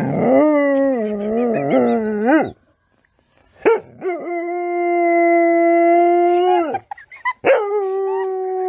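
Dog howling in three long howls: the first wavers up and down, and the next two are held on a steady pitch.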